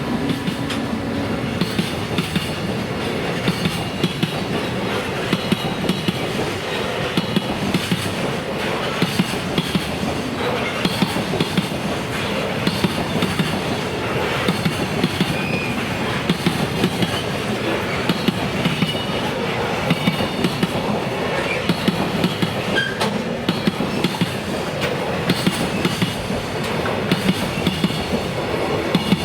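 Train rolling past over a level crossing, its wheels clacking over the rail joints in a steady, unbroken run.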